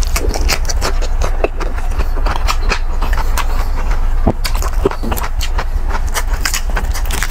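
Close-miked chewing of a bite of fresh cucumber, a stream of wet crunches and mouth clicks, with crackles as crispy pata skin is pulled apart by hand. A steady low hum runs underneath.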